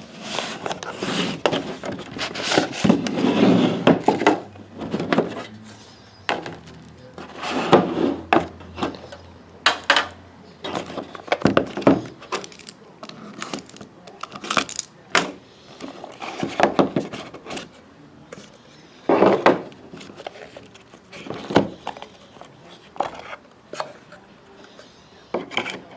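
Trading-card box packaging being opened and handled: rustling wrapper and cardboard with scattered irregular clicks and knocks.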